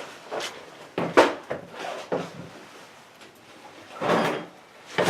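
Hand and tool handling sounds while the camshaft position sensor is worked loose from the Ecotec engine: a few short, irregular scrapes and knocks, the clearest about a second in and near four seconds.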